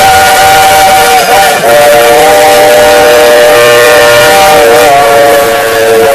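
Steam locomotive chime whistle blowing long, several steady notes sounding together over a hiss. The whistle breaks briefly about a second and a half in, then sounds again.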